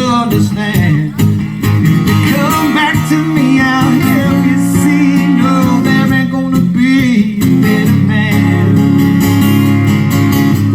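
Live country music: a singer with guitar accompaniment.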